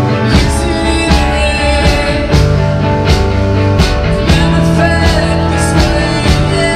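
Live rock band playing: electric guitars, bass guitar and drums.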